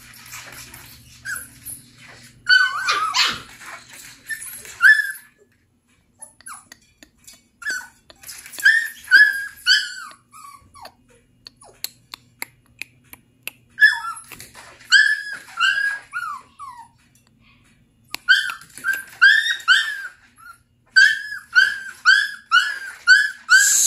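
Young puppies yipping and barking: short, high-pitched yaps in quick runs of several at a time, with pauses of a second or two between runs.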